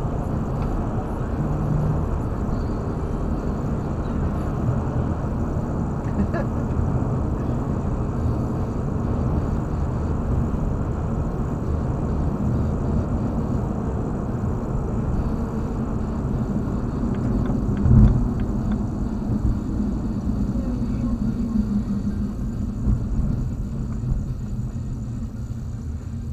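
Steady road and engine noise inside a car cruising on a highway, with a single sharp thump about eighteen seconds in. The noise eases off near the end as the car slows for a traffic light.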